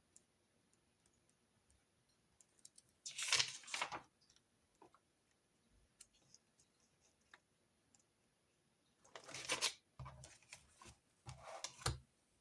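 Desk sounds of handwritten note-taking: three short scratchy rustles of paper and stationery, with small light clicks and taps in between.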